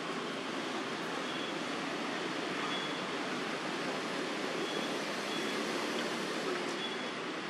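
Steady outdoor background noise, an even hiss, with faint short high chirps every second or two.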